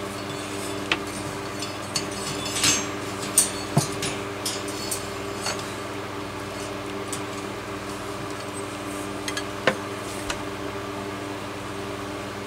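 Scattered light clicks, taps and clinks of metal fan parts being handled while the power cord is fed back through the fan housing, over a steady low hum.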